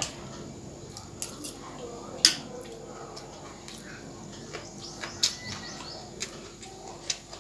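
A few scattered sharp clicks and taps of utensils against a plate while eating, the loudest about two seconds in, over faint bird chirps in the background.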